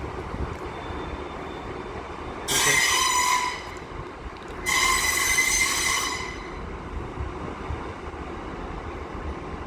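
A train's wheels squealing twice, high-pitched, each squeal lasting about a second, over a steady low rumble from the moving train.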